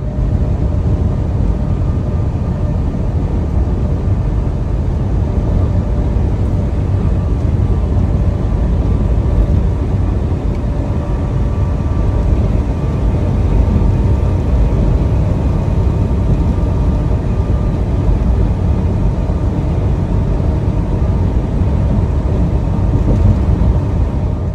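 Steady low rumble of a vehicle under way, with a faint even hum over it and no change in pace.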